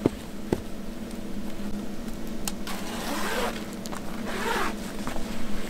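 A zipper drawn in two short rasping pulls about three and four and a half seconds in, after a couple of sharp clicks, over a steady low hum.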